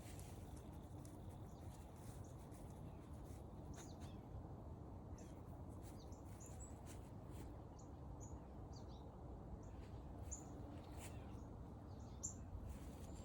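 Small birds chirping with short, high notes scattered throughout, faint over a steady low rumble of outdoor background noise.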